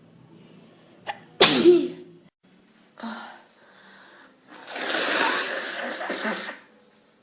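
A person with a cold and hay fever sneezing: a sharp intake, then one loud sneeze about a second and a half in. Another short burst follows, then a longer, loud breathy stretch near the end.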